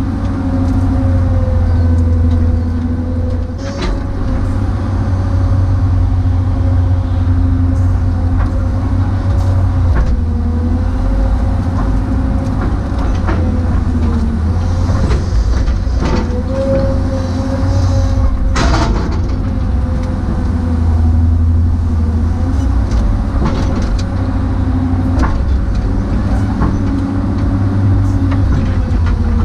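Kobelco excavator heard from inside its cab: the diesel engine running under load with a steady hydraulic whine that shifts slightly in pitch as the boom and bucket work. A few clanks are heard, the loudest about eighteen seconds in.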